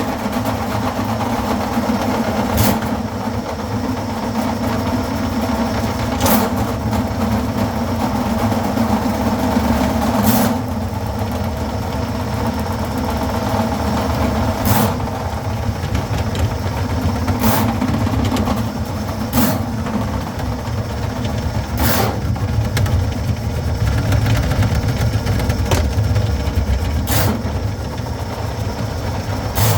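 Motorised drain-cleaning machine running steadily, with a sharp clank every few seconds.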